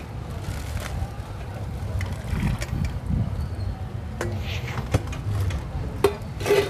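Busy outdoor food-stall ambience: a steady low rumble with faint voices in the background, and a couple of sharp clinks of a utensil against a stainless-steel mixing bowl about five and six seconds in as the salad is scraped out of it.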